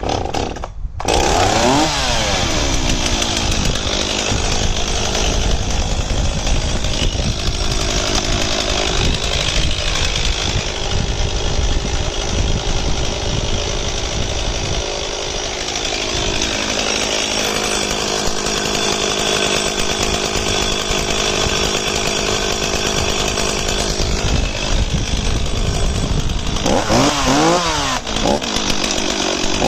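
Stihl 026 AV two-stroke chainsaw running at high revs. The revs climb about a second in, and near the end the throttle is blipped up and down several times.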